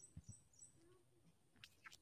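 Near silence: faint outdoor room tone with two soft low knocks just after the start and two brief sharp clicks near the end.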